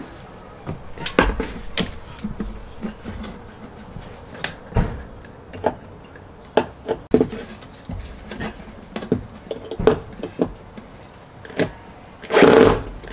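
Irregular knocks and clicks of hand work with tools and parts, then near the end a short, loud burst of a small electric motor.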